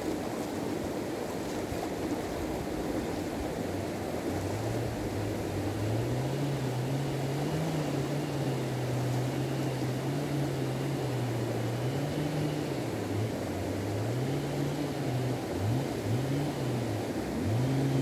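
Shallow mountain creek rushing steadily over stones. From about four seconds in, a low droning tone joins it, wavering up and down in pitch.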